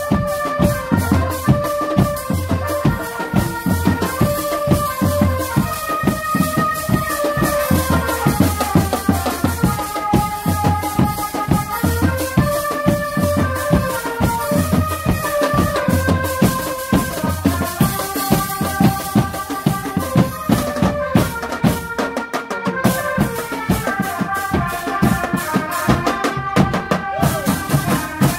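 A drum band playing: big bass drums beating steadily under dense snare and cymbal strokes, with a bright melody of short notes over the top. The bass drums drop out briefly about two-thirds of the way through, then come back.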